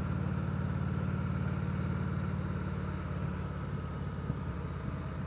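Victory Vegas V-twin motorcycle engine running steadily at low revs.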